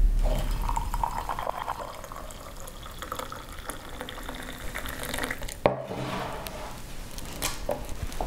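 Coffee pouring from a French press into a ceramic mug, a steady splashing stream. About two thirds of the way through there is a single sharp knock.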